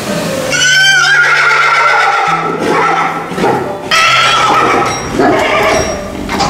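A mare and her foal, kept apart, whinnying: a long loud call starts about half a second in, and more calls follow at about four and five seconds. Soft background music plays underneath.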